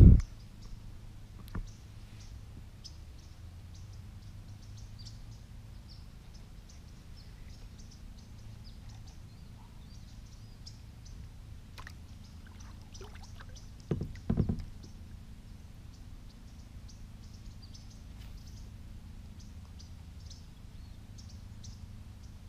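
Kayak paddle strokes dipping and dripping in calm pond water, with small faint ticks throughout over a steady low rumble. Two louder bumps come a little past halfway.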